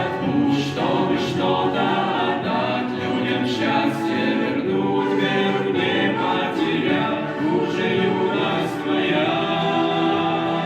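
Choral music: a choir singing in sustained, blended harmony.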